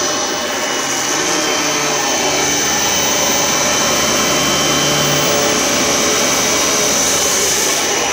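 Oreck XL21 upright vacuum cleaner running on its second speed with a steady high whine, pushed over carpet and picking up scattered debris.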